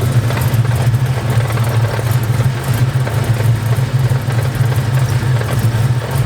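SN95 Mustang V8 idling with the clutch engaged, a steady idle with a rattling, clinking clatter from the bell housing. This is the chatter of a Spec Stage 2 Kevlar clutch with a lightweight flywheel. It goes away with the clutch pedal pressed, and the owner's mechanic thinks the clutch and flywheel may be out of balance.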